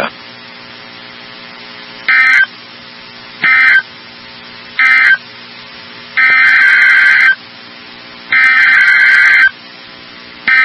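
Emergency Alert System SAME data tones: three short digital bursts about a second apart, the end-of-message code closing one alert, then longer bursts of about a second each, the header of the next alert, the third starting near the end. A faint steady hum runs underneath.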